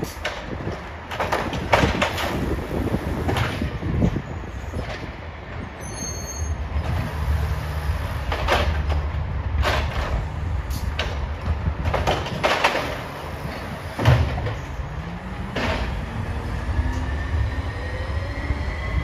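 Peterbilt 320 garbage truck at work: a series of sharp clanks and bangs over a low engine rumble that grows heavier about seven seconds in, then the engine rises in pitch near the end as the truck pulls away.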